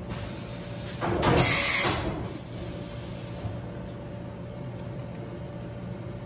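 Mori Seiki SV503/40 CNC vertical machining center running with a steady hum. About a second in comes a loud hissing rush lasting about a second.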